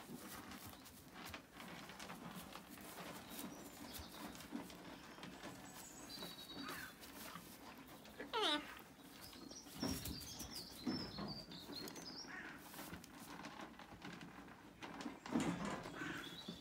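Animals moving on straw bedding: rustling and soft steps. About eight and a half seconds in there is a short, high call that falls steeply in pitch, and it is the loudest sound. High chirping follows a second or two later.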